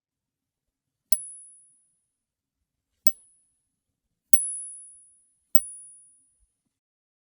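A Soviet 2-kopek coin struck four times, each strike leaving a high, thin ring that fades away within about a second, then a faint tap near the end.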